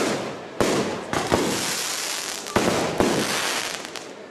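Fireworks bursting overhead: about five sharp bangs in the first three seconds, each followed by crackling that fades away.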